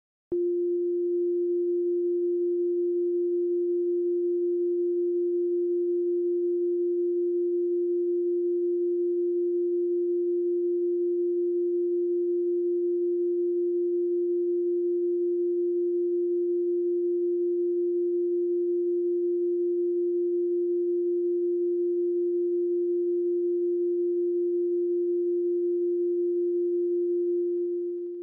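A steady electronic tone at a single low-middle pitch, held unbroken for nearly half a minute, then fading out near the end.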